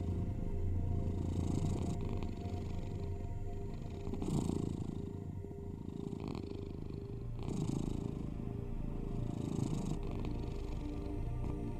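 Domestic cat purring steadily, the purr swelling and fading every two to three seconds with its breathing, over low steady humming tones.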